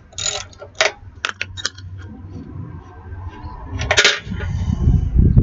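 Small metal parts being handled: a run of short clicks and light clanks, a single sharp knock about four seconds in, then low rumbling handling noise.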